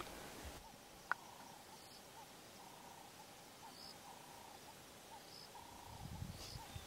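Faint bush ambience: insects chirping in short repeated notes, with a single sharp click about a second in and low rumbling starting near the end.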